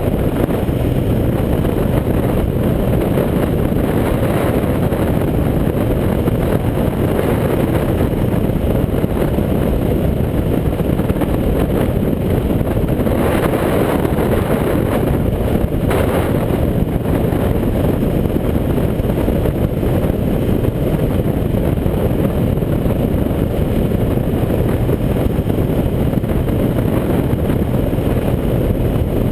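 Motorcycle being ridden at steady speed: a steady rush of wind on the camera's microphone with the bike's running noise underneath.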